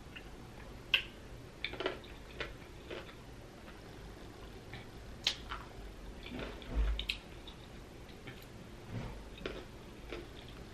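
Close-miked chewing of a large whole green pickle: irregular wet crunches and mouth clicks, with one dull low thump about two-thirds of the way through.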